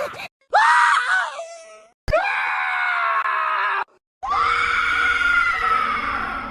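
Three separate angry screams in a row, each cut short by a moment of silence: a brief yell that rises then drops away, a held scream that starts with a click, and a longer held scream that fades near the end.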